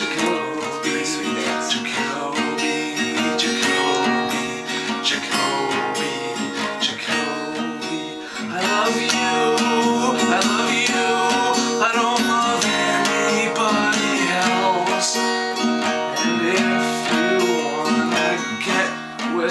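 Music led by a strummed acoustic guitar, with a steady strumming rhythm.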